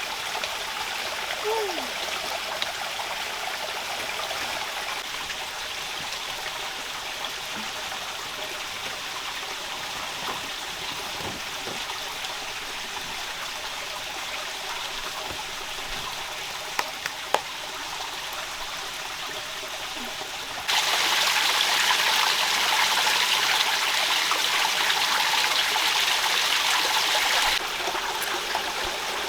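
Steady rush of water, with two sharp ticks a little past the middle; about two-thirds of the way through the water suddenly grows much louder for several seconds, then drops back just as suddenly.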